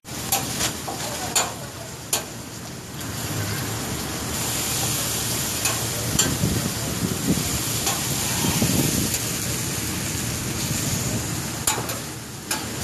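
Sausage slices and meat sizzling on a hot flat-top griddle, a steady frying hiss that grows fuller after about four seconds. Sharp clicks sound now and then on top of it.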